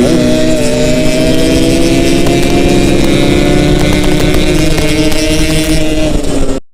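Yamaha RX-King's 135 cc single-cylinder two-stroke engine running on the move, its pitch easing slowly down over the first few seconds. The sound cuts off abruptly just before the end.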